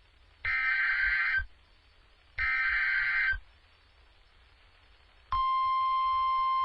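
Emergency Alert System tones on NOAA Weather Radio: two short bursts of SAME digital header data, each about a second long and about a second apart. About five seconds in, the steady 1050 Hz weather radio warning alarm tone begins.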